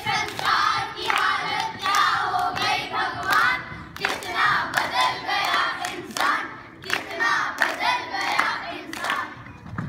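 A group of boys chanting loudly together in short repeated phrases, with sharp hand claps about once a second.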